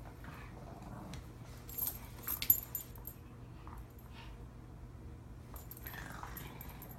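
Two dogs playing together, with their collar tags jingling in a sharp burst of clinks about two seconds in and a few faint clicks after.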